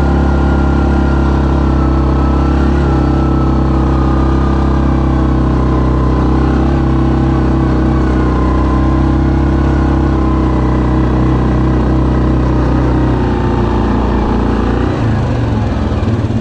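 2019 Yamaha Kodiak 700 ATV's single-cylinder engine running steadily under way, its low note dropping off near the end.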